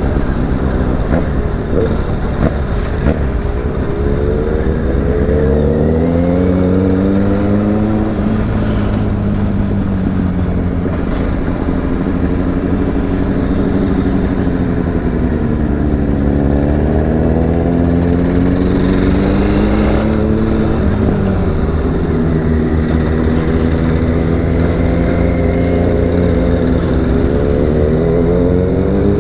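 Motorcycle engine heard from the rider's own bike while riding, its pitch climbing and falling several times as the throttle opens and closes, with one sudden drop about two-thirds of the way through. A heavy wind rumble on the microphone runs underneath.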